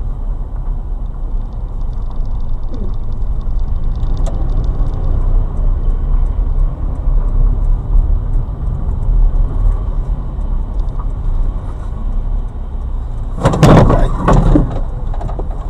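Steady low road and engine rumble inside a car in traffic. About thirteen seconds in, a loud crunching impact lasting about a second: a truck's side striking and scraping along the car.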